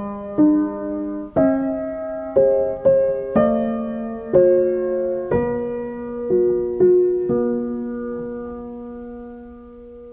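Background music: slow solo piano, notes and chords struck about once a second, ending on a long held chord that slowly fades away.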